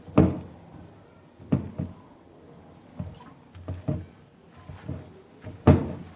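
Irregular knocks and thuds of gram-flour batter being mixed by hand in a bowl, several in all, the loudest near the end.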